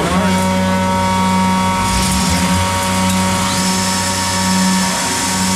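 Weinig molder planer's motors finishing their spin-up and running at speed with a steady, loud whine. A higher whine rises to a new steady pitch a little past halfway through.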